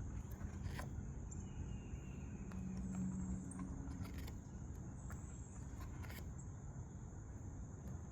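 Quiet background: a low steady rumble and a faint steady high whine, with a few soft clicks.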